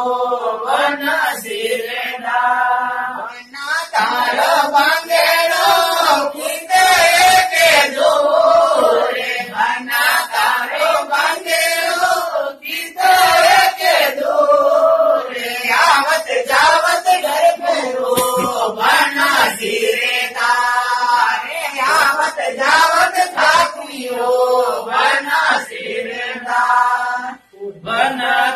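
Chant-like singing: a melody sung with long held, wavering notes in phrases of a second or two, without spoken words.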